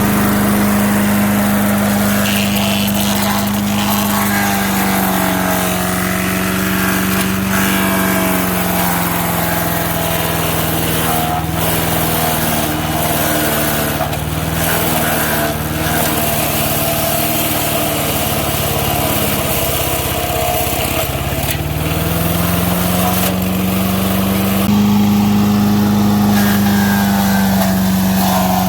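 MTD 5-horsepower chipper shredder's engine running, its pitch sagging and staying low for about fifteen seconds as it bogs under the load of branches being fed in, then picking back up near the end. Sharp cracks of wood being chipped come now and then in the middle.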